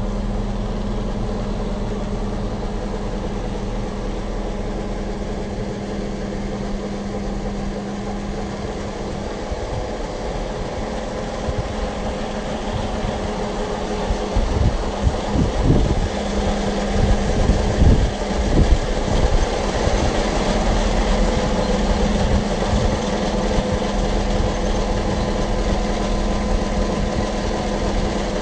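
A 2008 Kobelco SK485 excavator's diesel engine idling steadily. About halfway through there are a few seconds of uneven, louder low rumbling.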